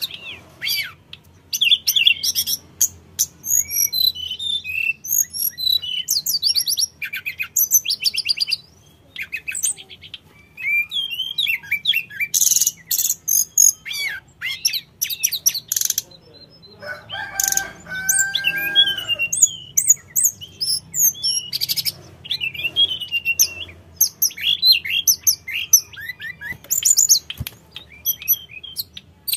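Hill blue flycatcher singing a rapid, varied run of high chirps, trills and whistled notes, in phrases broken by short pauses. A lower, drawn-out call from another bird cuts in a little past the middle.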